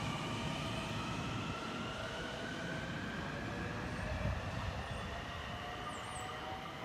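Long Island Rail Road Kawasaki M9 electric train pulling out of the station: rumble with an electric propulsion whine that slowly rises in pitch as it picks up speed, fading a little near the end.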